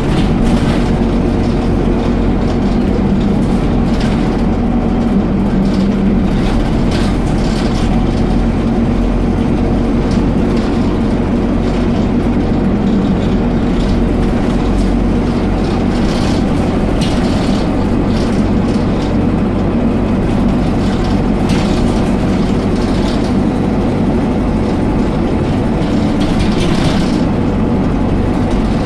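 Dennis Dart SLF single-deck bus's diesel engine running steadily, with short clicks and rattles now and then.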